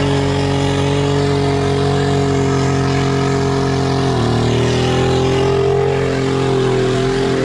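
Mitsubishi Pajero's 3.0 V6 engine running hard at held revs under load as it pushes through deep mud. About four seconds in, the revs drop sharply, then climb a little and hold again.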